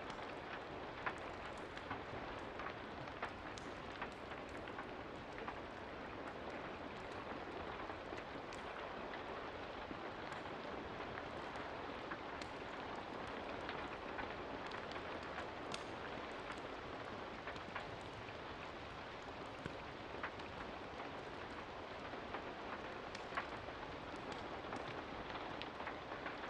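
Steady rain, an even hiss, with scattered sharp ticks every second or two.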